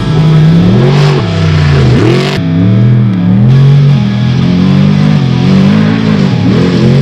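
Heavy rock music with distorted electric guitar and bass.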